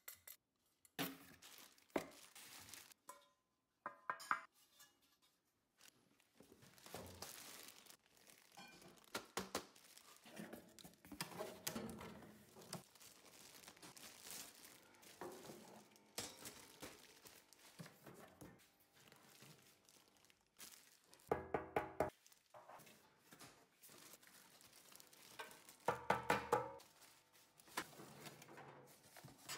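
Grill parts being unpacked: plastic wrap and cardboard crinkling and rustling, with scattered knocks and clinks of metal parts such as porcelain-coated grill grates and a stainless handle being handled and set down. Two louder, ringing clatters stand out in the later part.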